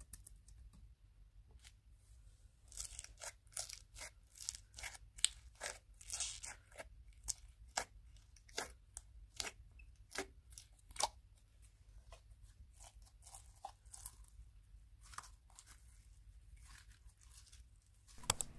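Pink slime with small beads in it being squeezed, poked and stretched by hand in a glass jar, giving faint, irregular sharp pops and crackles that start about two and a half seconds in and thin out near the end.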